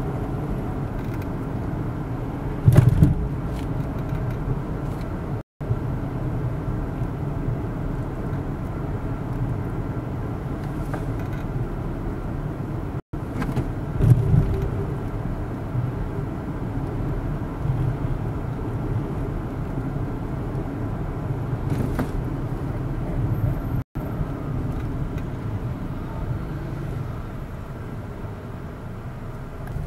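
Road and engine noise of a moving car heard from inside the cabin, a steady low rumble. Brief knocks about three seconds in and near the middle stand out, and the sound drops out for an instant three times.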